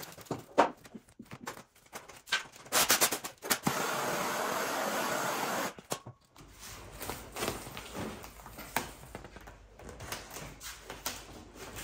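Vinyl wrap film crinkling and snapping as it is pulled and stretched over a car fender, with a burst of sharp crackles about three seconds in. A steady hiss runs for about two seconds in the middle and cuts off suddenly.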